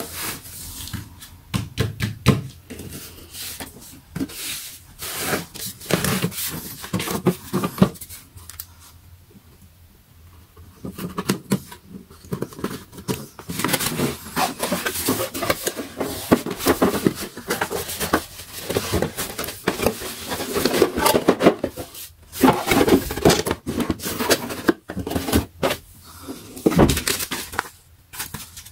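Cardboard box and packaging being handled and opened by hand: flaps scraping and folding, paper and wrapping rustling, with many small knocks and taps. It briefly goes quieter about a third of the way through, then the rustling and scraping run on densely.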